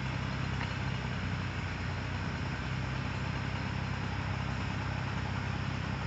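Bucket truck's engine idling steadily: an even, low hum with no change in pitch.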